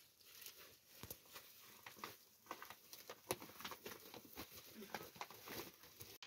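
Woven plastic sacks rustling and crinkling faintly as they are handled, with irregular light clicks and scrapes.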